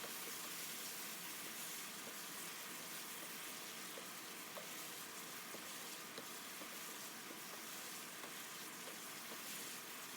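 Onion and spice masala frying in oil in a pan: a steady, faint sizzle with small scattered pops, cooking on high heat until the oil separates.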